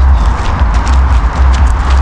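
Wind buffeting the microphone as a loud, uneven low rumble, with irregular sharp clicks of footsteps on a path.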